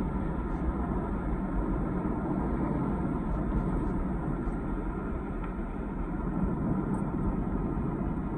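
Steady road and engine noise of a car driving, heard inside the cabin.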